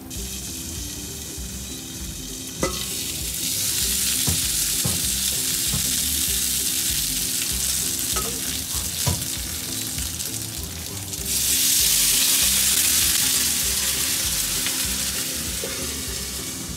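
Gyoza frying in oil in a frying pan, with a steady sizzle and a few light knocks. The sizzle gets louder about three seconds in and again about eleven seconds in, as water is added to steam them. Judging by the sound, the cook wonders whether they are overcooking.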